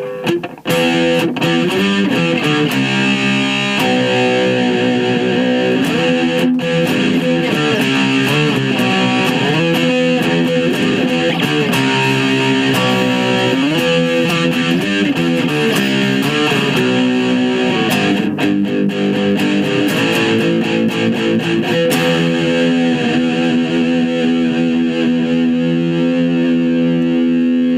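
Yamaha SE350H electric guitar played through a Roland Micro Cube practice amp: chords and riffs with several wavering pitch bends, ending on a long held chord.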